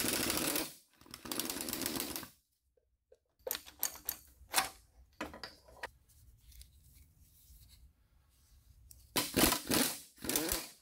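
Ratchet on a long extension clicking in fast runs, twice at the start and again near the end, as the 12-point bolts at the CV axle flange are undone; scattered metal clicks and knocks in between.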